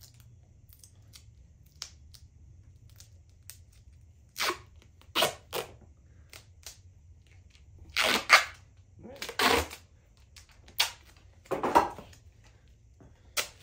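Duct tape ripped off the roll in a series of short, sharp pulls, each under a second long, the loudest in the second half.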